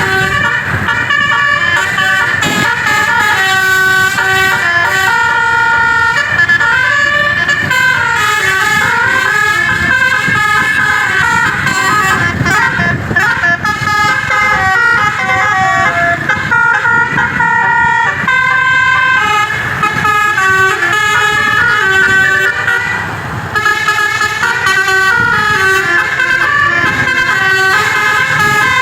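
Basuri telolet musical air horn on an Indonesian tour bus, playing a continuous melody of loud horn notes that step up and down in pitch, with a brief lull about three-quarters of the way through.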